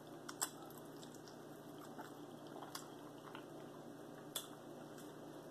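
Mouth chewing and biting on barbecued meat, faint, with a handful of short clicks spread across the few seconds.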